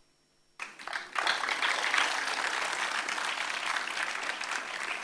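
Audience applauding, starting about half a second in after a brief hush and holding steady.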